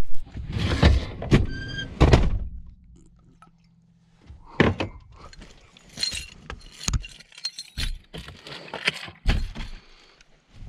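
Camper van door squealing briefly and shutting with a heavy thunk, followed by scattered knocks and rustling as things are handled inside the van.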